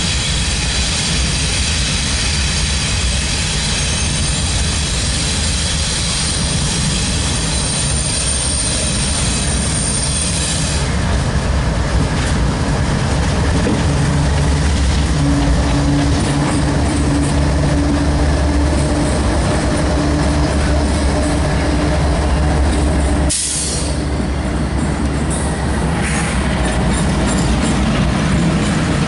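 A CSX freight train's lead diesel locomotives approach and pass close by. For the first ten seconds or so a steady high squeal of steel wheels on the rail rides over the train noise. From about fourteen seconds in, the engines' deep rumble and hum take over and grow loud as the units go by.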